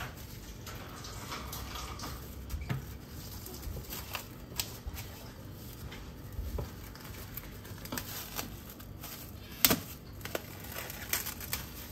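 Quiet kitchen handling sounds: scattered light clicks and taps of things being moved and set down, with one sharper knock about ten seconds in.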